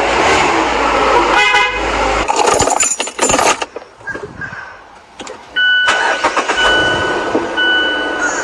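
A vehicle horn sounds briefly about a second and a half in, among rough noise. From near the middle, a high single-pitched beep repeats about once a second.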